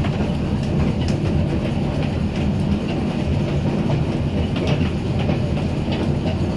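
Narrow-gauge park railway train running, heard from an open-sided carriage: a steady low rumble of wheels and running gear, with a few sharp clicks as the wheels pass over rail joints.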